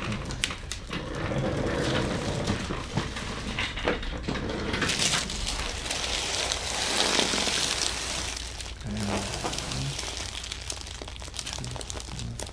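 Rustling and crinkling of a person shifting on a chiropractic treatment table, with scattered small clicks, loudest about midway.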